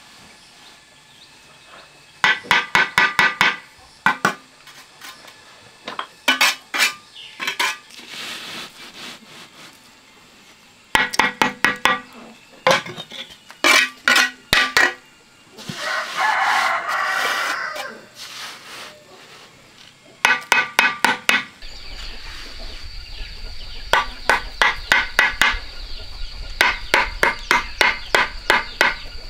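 Metal trowel tapping red bricks down into a fresh mortar bed, in quick bursts of ringing taps. A rooster crows once about midway, and a steady hum comes in about two-thirds through.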